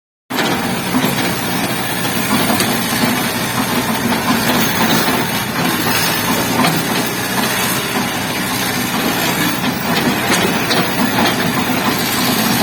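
Kobelco SK200 excavator's diesel engine running steadily, a loud even engine noise with hiss, cutting in abruptly just after the start.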